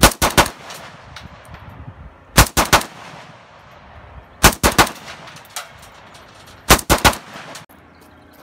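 Semi-automatic gunfire in four quick strings of about four shots each, roughly two seconds apart.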